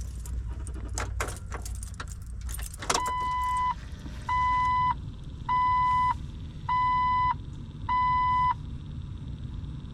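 A bunch of keys jangles and rattles at the ignition. Then about three seconds in the Jeep's warning chime sounds five steady beeps, about one a second. This is typical of the key-in-ignition reminder with the key off.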